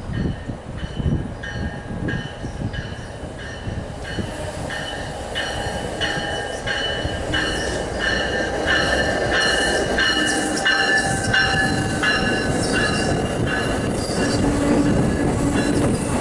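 A passenger train pulling into the station, its rumble growing steadily louder. A high ringing tone repeats about two to three times a second over it.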